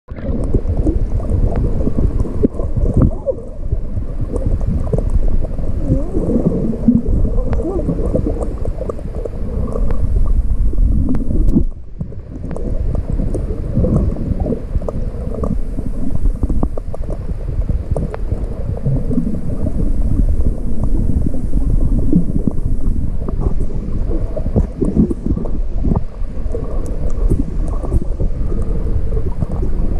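Muffled underwater rumble of water moving around a camera held below the surface, low and steady with scattered faint clicks; the sound drops away briefly about twelve seconds in.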